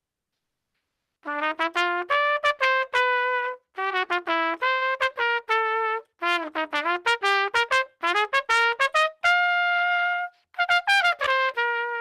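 Trumpet played solo, starting about a second in: quick runs of short, sharply separated notes in several phrases, some notes bending down and back up in pitch, with one longer held note about nine seconds in.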